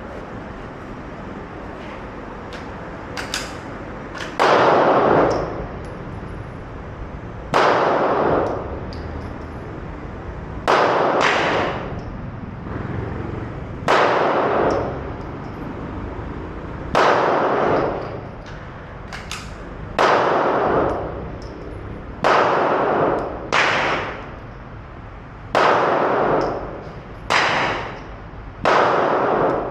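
Gunshots at a shooting range, about fifteen in all, one every one to three seconds and often in quick pairs or threes, each followed by a short ringing echo.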